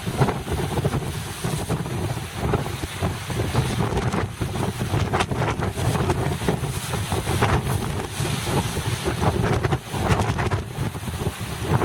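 Strong gusting wind buffeting the microphone over a rough sea, a constant low rumble with rushes of surf beneath.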